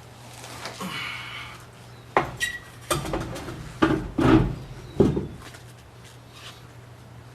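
Metal tools and parts being handled: a rustle about a second in, then a series of sharp metallic clanks and knocks, one with a brief ring, over a low steady hum.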